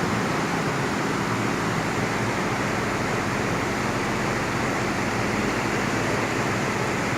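Heavy diesel construction machinery running steadily: a constant, even engine noise with no changes in pitch.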